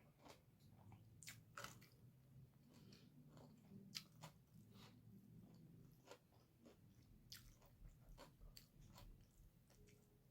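Faint chewing and crunching of food close to the microphone: irregular short crisp bites and mouth clicks.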